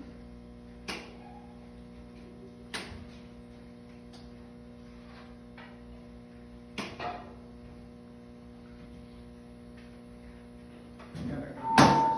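Steady electrical mains hum with a few sharp clicks and knocks. Near the end there is a louder knock, and then a steady high fire alarm tone begins: the fire alarm system going into alarm.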